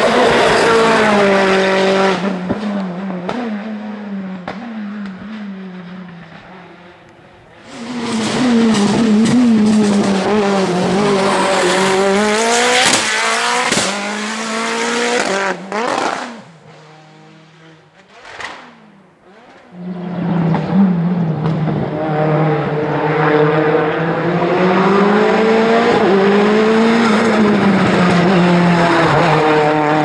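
Lancia Delta Evo E1 hillclimb race car engine accelerating hard, revving high and dropping back through quick gear changes as the car passes and fades away. A few sharp backfire cracks come around the middle, then a second loud run revs up through the gears.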